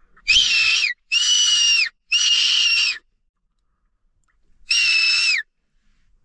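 Fox whistle blown four times to call in a fox: three short, high-pitched calls in quick succession, then one more after a pause of about two seconds. Each call is a steady note of under a second, and the first and last drop in pitch at the end.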